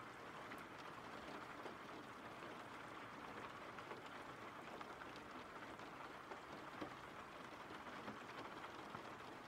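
Faint, steady rain ambience: an even patter of rainfall from a background rain-sound track.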